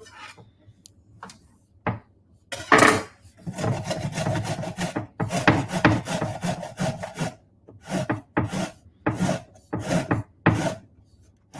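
Zucchini being grated by hand on a metal grater: a run of repeated scraping strokes starting about two and a half seconds in, after a few light knocks.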